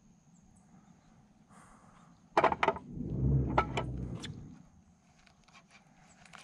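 A quick run of sharp clicks from a baitcasting rod and reel being handled, followed by a low rumble of handling noise with a couple more clicks in it.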